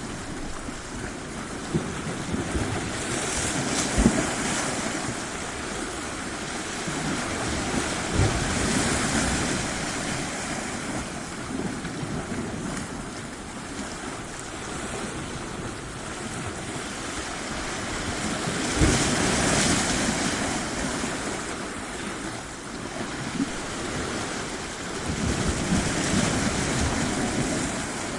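Ocean waves washing onto a shore, swelling and easing in several surges, a few of them starting with a low thump of breaking water.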